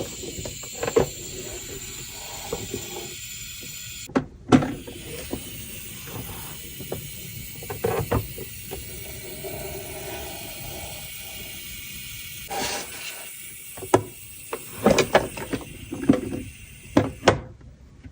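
Packaging handled during an unboxing: irregular rustles, crinkles and clicks, in clusters with short gaps, over a steady background hiss.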